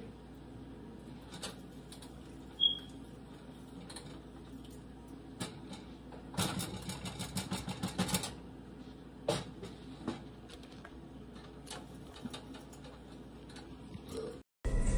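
A plastic spatula stirring and scraping in a pot of soup, with a quick run of rapid strokes lasting about two seconds some six seconds in, and scattered light clicks and knocks from the spatula and a glass pot lid being handled.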